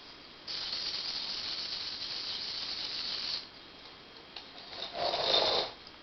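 Small DC drive motors of a homemade robot whirring as it drives, in two runs: one of about three seconds starting half a second in, then a shorter, louder one near the end.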